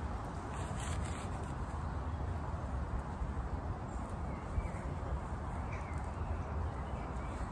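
A few brief rustles as leaves are stripped off fresh stinging-nettle stems by a gloved hand, over a steady low outdoor background noise, with a couple of faint bird chirps in the middle.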